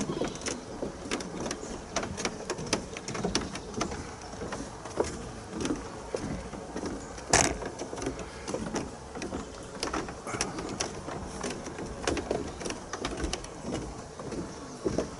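Footsteps on the wooden planks of a boardwalk footbridge, a few steps a second at walking pace, with one louder knock about halfway through.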